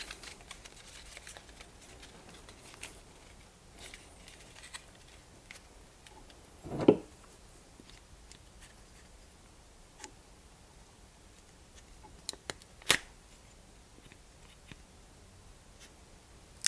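Faint crinkling and scraping of stiff birch bark strips as they are tugged through a folded star with a multi-tool's pliers, with small clicks from the tool. One louder low thump comes about seven seconds in, and a sharp click comes about thirteen seconds in.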